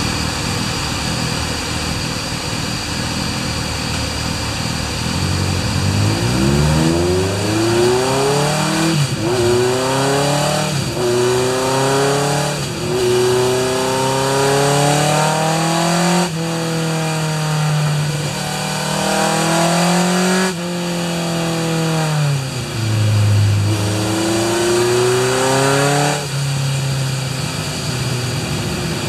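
Honda CB750F air-cooled inline-four, fitted with Keihin CR-M29 carburetors, running on a chassis dynamometer during carburetor setting. It runs low and steady for about six seconds. Then it pulls up in pitch in several long rising sweeps, each broken off by a sudden drop in revs. Near the end the revs fall lower and it climbs once more.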